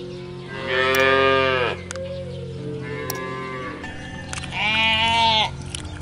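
Cow mooing: two loud, drawn-out moos of about a second each, one about a second in and one near the end, with a fainter moo between them.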